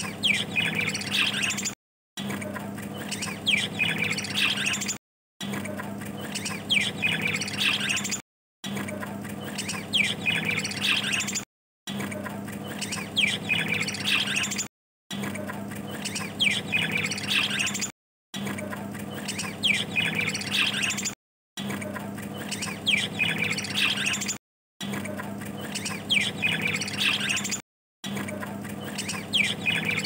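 A flock of budgerigars chattering and chirping, with quick falling chirps, over a steady low hum. The same few seconds of sound repeat about every three seconds, each time broken by a short drop-out.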